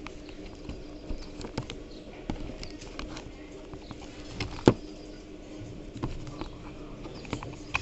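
Plastic control knobs being pushed onto the spindles of an air cooler's rotary switches: scattered small clicks and taps, with one sharp snap about halfway through, over a faint steady hum.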